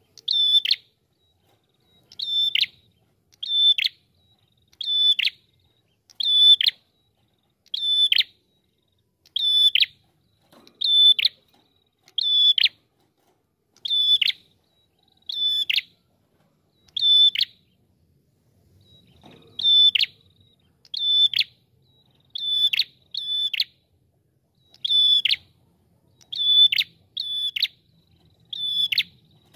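A caged red-headed prenjak calling over and over. Each call is a loud, sharp, high note that drops in pitch, coming about every second and a half, with one pause of about two seconds a little past the middle.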